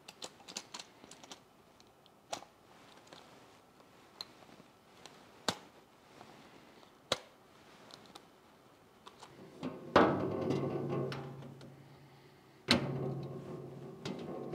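Light clicks and ticks of small parts being handled on a clear acrylic shelf. Then comes a loud knock with a ringing tail, and a second one a few seconds later, as the acrylic shelf is set back into the steel-framed glass cabinet.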